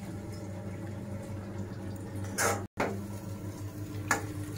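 A steady low hum, broken by a brief knock about two and a half seconds in and another near the end.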